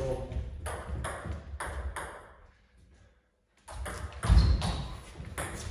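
Table tennis ball clicking off the bats and the table in play, a quick run of sharp clicks with a short ring in the hall. About halfway through there is a second of near silence, and then the clicks start again.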